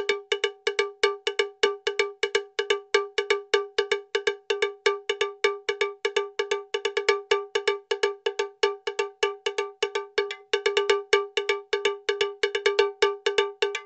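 A fast, even run of short cowbell-like strikes, about four or five a second, all on the same note. It breaks off just at the end.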